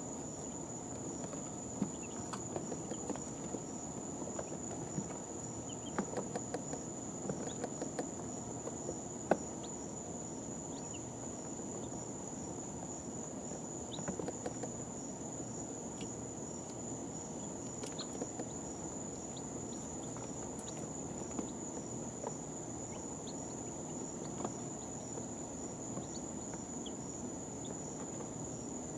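Baby chicks in a brooder making scattered small taps and clicks as they shift about and peck at the bedding, most of them in the first nine seconds, the loudest a sharp tap about nine seconds in. Beneath them runs a steady high-pitched whine over a low hum.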